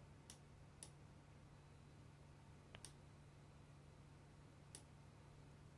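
Near silence with about five faint computer mouse clicks, two of them close together near the middle, over a faint steady low hum.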